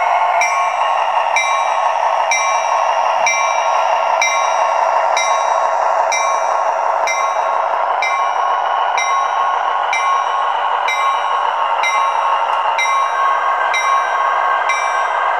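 HO-scale F59PHi model locomotive's DCC sound decoder playing an EMD 710 twelve-cylinder turbo diesel through a small speaker, thin with no deep bass, with the locomotive bell ringing about twice a second. The engine note shifts slightly near the end.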